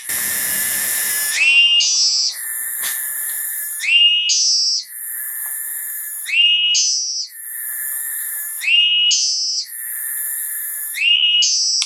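An animal call in the forest repeating about every two and a half seconds, five times: each call is a steady high whistle-like note with a hiss above it, which then sweeps up into a higher buzzing note. A short burst of noise comes at the very start.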